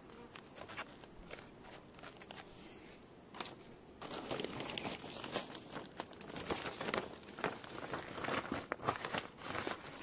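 Thin plastic sheet crinkling and rustling as it is shaken out and spread over a plastic beehive lid, starting about four seconds in; before that only faint scattered ticks.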